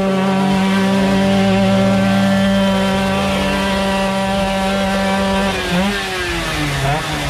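Small two-stroke moped engine held at high, steady revs. About five and a half seconds in its pitch drops, then it revs up and down.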